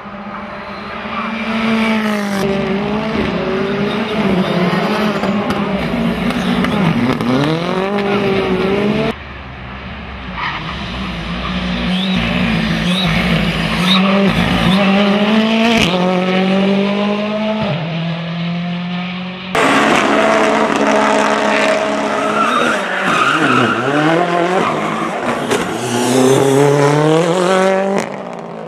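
Rally car engine driven hard, revving up and dropping back again and again as it shifts gears and lifts off through the corners. The sound jumps abruptly about 9 and 20 seconds in.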